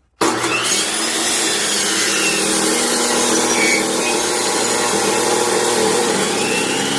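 Chainsaw cutting through a log for firewood, starting suddenly at full speed and running steadily. Its pitch drops near the end.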